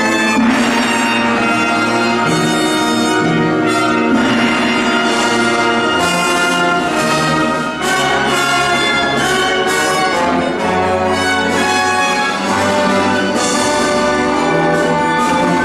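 Symphony orchestra playing a full, loud passage, the chords changing every second or two.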